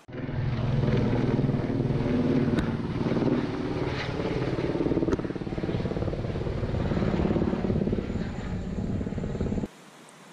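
Helicopter flying low overhead, its rotor beating steadily, cut off abruptly near the end.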